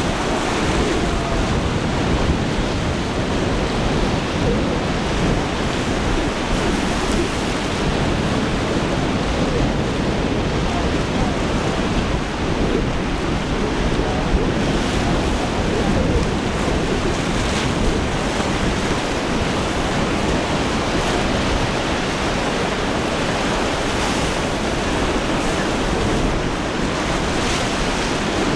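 Steady rush of rough surf and breaking waves, with wind buffeting the microphone.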